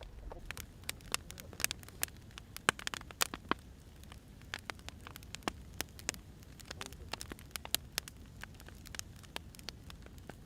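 Wood fire crackling: irregular sharp pops and snaps from burning firewood over a low, steady rumble of flame.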